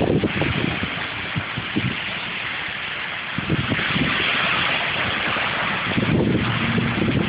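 A car driving through a flooded street, its tyres hissing through the water, swelling as it passes about four seconds in, over a low engine hum.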